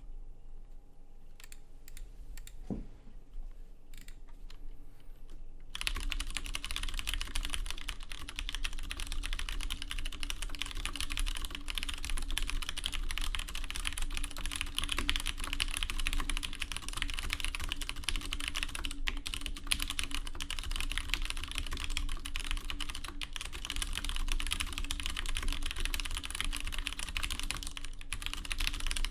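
Typing on a Leopold FC750R PD mechanical keyboard with stock Cherry MX Brown switches and PBT keycaps, which sound loud and harsh. A few scattered keystrokes come first, then continuous fast typing from about six seconds in.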